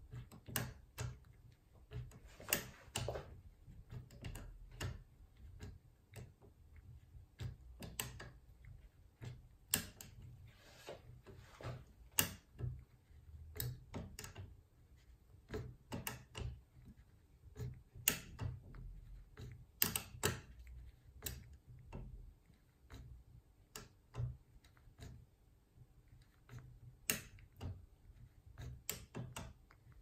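Irregular sharp metallic clicks and ticks of a turbo decoder pick being worked under tension in a JUWEL 4x4 double-bit safe lock, setting its wafers while the lock is being picked open.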